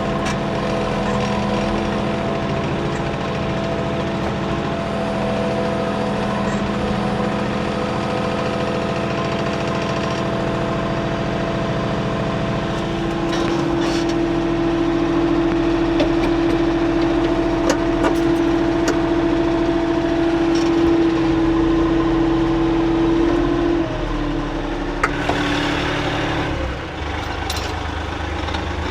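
Kioti 3520 compact tractor's diesel engine running steadily. A stronger, steady higher tone joins about 13 seconds in and drops away about 24 seconds in.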